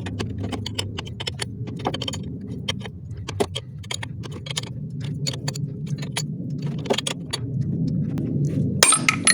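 Irregular metallic clicks and clinks of hand tools working a puller on a diesel high-pressure fuel pump's drive sprocket, over a steady low hum. A louder burst of clatter comes near the end.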